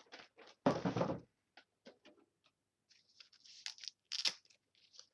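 Handling of packaging: crinkling and rustling, loudest about a second in, with scattered light clicks and taps and more crinkling near the end.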